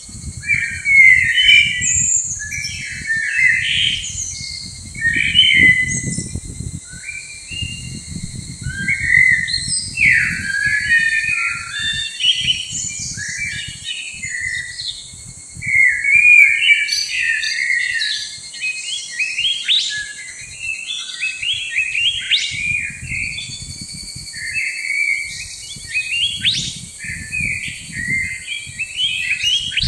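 Small songbirds chirping and trilling without pause, many quick high notes overlapping, over a low rumble that comes and goes.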